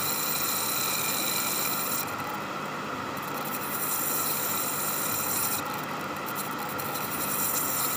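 Asli Punjab electric water pump running steadily, a continuous motor hum with a higher whine over it, while it draws about 4.2 amps.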